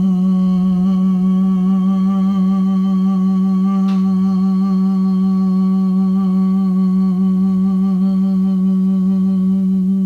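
A woman's voice toning one long, steady note, hummed and held on a single pitch with a slight waver, as a sound-bath 'sound code'. A faint click is heard about four seconds in.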